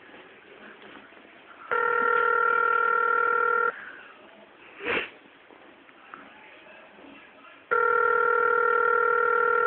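Telephone ringback tone heard on the caller's end: it rings twice, each ring a steady tone about two seconds long, with about four seconds between them. This is the call ringing through, not yet answered. A short, brief sound comes between the two rings.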